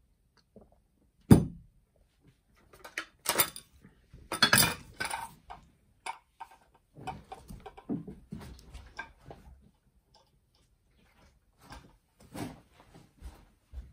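A sharp knock about a second in, then intermittent clinks and clatter of crockery: a glass mug, a small cup and a spoon being gathered onto a plate and lifted off a table, with more knocks near the end.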